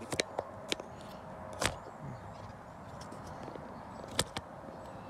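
Several sharp clicks and taps over a steady background hum with a faint steady tone. The loudest clicks come about one and a half seconds in and again about four seconds in.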